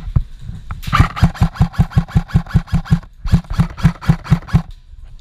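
Airsoft rifle firing two long strings of rapid shots, about seven or eight a second, with a brief pause between them and a single shot just before.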